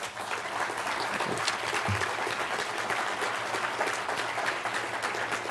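Audience applauding, a dense, steady clapping that keeps an even level throughout.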